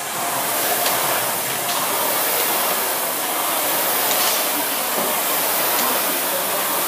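Two air-resistance rowing machines being rowed hard at once, their fan flywheels giving a steady rushing whoosh.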